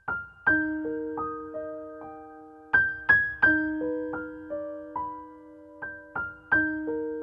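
Background music: a slow, gentle piano piece, single notes struck one after another and left to ring out and fade over lower held notes.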